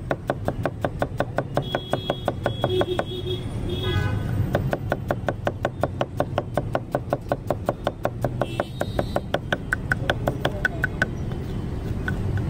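Large knife chopping red onions on a wooden block: a fast, even run of knocks, about five or six a second, breaking briefly about three seconds in and stopping near the end.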